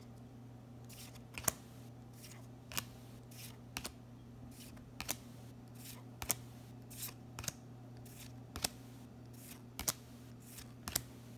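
Trading cards being flipped one at a time through a booster pack held in the hands, each card giving a short papery snap as it slides off the stack. About a dozen snaps come at irregular intervals, starting about a second in, over a steady low hum.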